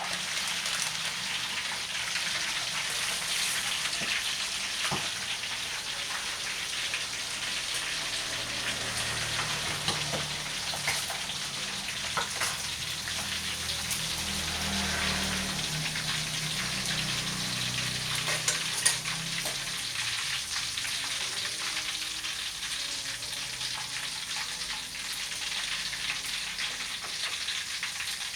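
Duck pieces frying in hot oil: a steady sizzle with scattered pops and crackles. A low hum runs underneath for a while in the middle.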